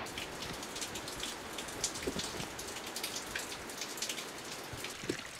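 Light rain falling close to the microphone: irregular sharp ticks of drops over a steady hiss.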